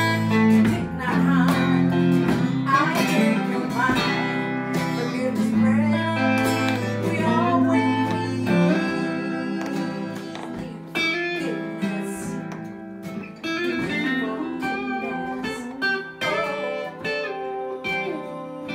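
Acoustic guitar playing a slow, blues-tinged passage with some notes bent. The low held notes drop out about nine seconds in, and the playing is quieter after that.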